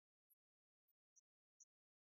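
Near silence, broken by a few very faint, very short high ticks.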